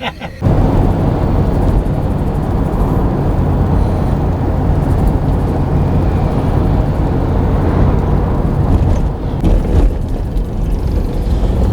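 Steady engine and road noise from a moving vehicle, heard from on board. It starts suddenly about half a second in.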